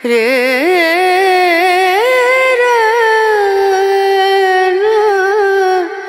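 Music: a single voice singing a slow melodic line, its long held notes wavering and gliding between pitches, breaking off near the end.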